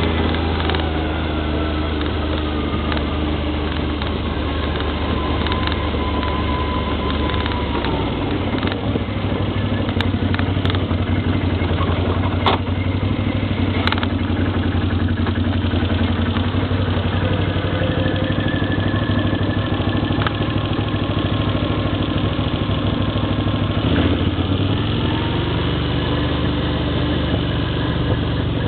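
ATV engine running steadily, its pitch shifting about eight seconds in and again near the end, with a few sharp knocks in the middle.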